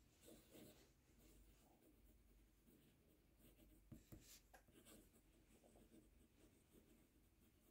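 Faint scratching of a fountain pen nib writing on Leuchtturm 1917 notebook paper, in a few short strokes about half a second in and again around four seconds in.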